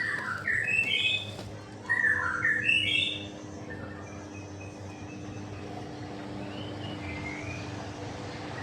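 A songbird singing: quick runs of short whistled notes climbing in pitch, two phrases in the first three seconds, then a few fainter notes about seven seconds in, over a low steady hum.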